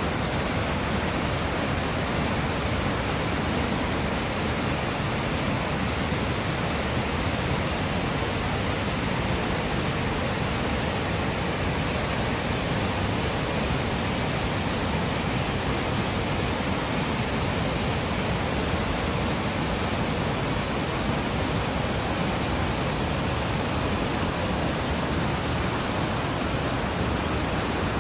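Creek water rushing steadily over a concrete weir and down through boulders, a loud even rush with no breaks.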